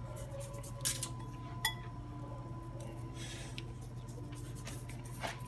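Quiet kitchen handling sounds over a steady low hum: a couple of light clicks and a small ringing clink about one and nearly two seconds in, and a soft brief rustle around three seconds in, as seasoning is sprinkled by hand over raw bacon on a metal sheet pan.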